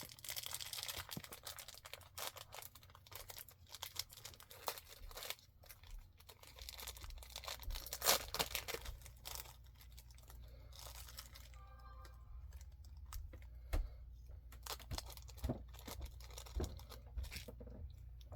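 Packaging being torn open by hand without scissors: dense tearing and crinkling for the first half or so, then sparser rustles and clicks.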